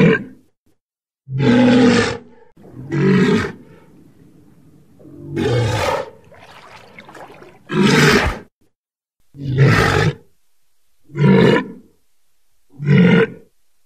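Walrus bellowing: a series of short, loud calls, roughly one every second and a half, with a brief pause near the middle.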